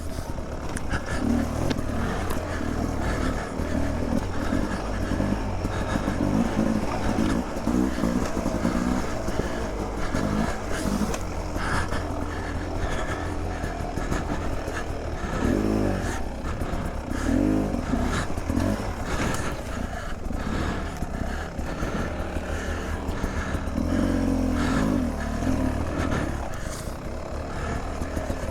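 Beta 300 RR two-stroke dirt bike engine revving up and down over and over as the throttle is opened and closed while riding, with scattered knocks and rattles.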